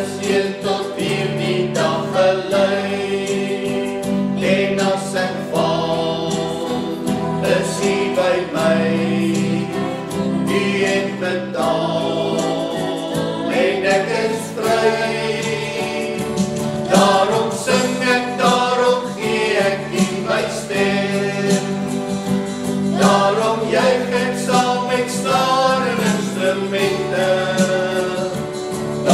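Small church worship group singing an Afrikaans praise song together in mixed men's and women's voices, accompanied by strummed acoustic guitars.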